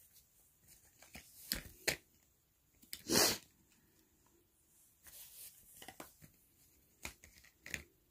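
Scattered small clicks and rustles of makeup items being handled and searched through, with one louder, longer rustle about three seconds in.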